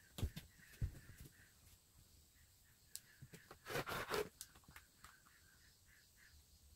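A few light knocks as an acrylic quilting ruler is set down on a cutting mat, then, about four seconds in, the short rasping swish of a rotary cutter rolling through layered cotton strip-set fabric along the ruler's edge.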